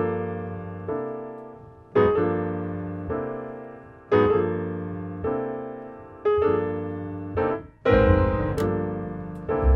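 Jazz piano introduction: sustained chords struck roughly once a second, each ringing and fading away, with deeper low notes joining near the end.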